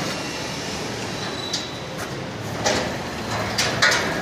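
Hinged metal storage door of a barbecue cart being handled and swung shut: a few light knocks and clicks over a steady background hum.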